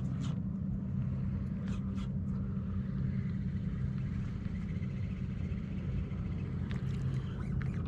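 A boat motor running steadily with a low, even hum, with a few light clicks in the first couple of seconds.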